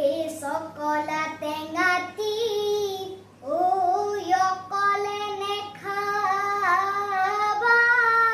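A child singing a Bihu song in long held notes, with no instruments, pausing for breath about three seconds in.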